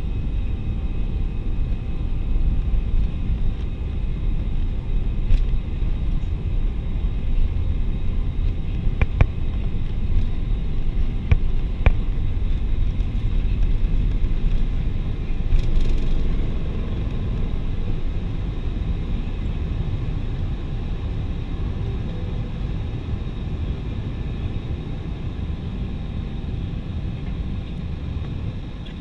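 Airbus A320 takeoff heard from inside the cabin over the wing: jet engines at takeoff thrust with a heavy rumble from the wheels on the runway. A few sharp thumps come about nine to twelve seconds in. About sixteen seconds in the rumble eases as the jet lifts off and climbs.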